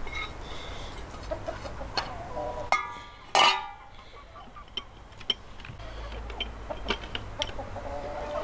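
Chicken calling: a short pitched call just before three seconds in, then a loud, harsh squawk about half a second later, with scattered light clicks around it.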